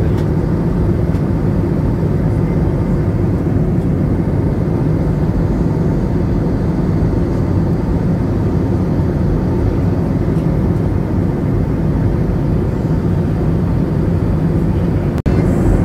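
Steady engine and airflow noise of a jet airliner in cruise flight, heard from inside the passenger cabin, with most of the sound in the low end. It drops out for an instant near the end.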